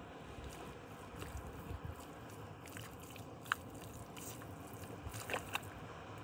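Wet clay squelching as a leg is worked up out of deep, sticky mud, with a sharp wet smack about halfway through and a couple more near the end.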